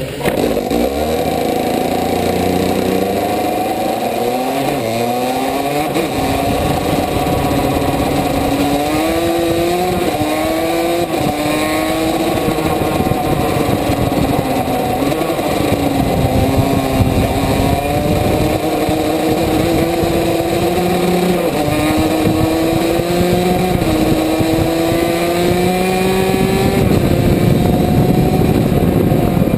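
KZ2 kart's 125cc two-stroke shifter engine under hard acceleration, its pitch climbing and dropping back again and again as it revs through the gears and backs off.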